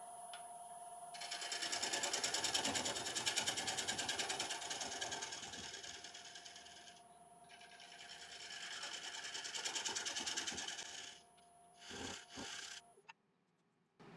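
Wood lathe running with a steady motor whine while a bowl gouge cuts a spinning, out-of-balance laburnum crotch blank for a winged bowl. The tool strikes the wings on each turn in a rapid rhythmic clatter, in two long passes. Near the end there are a couple of knocks, then the lathe switches off and the whine stops.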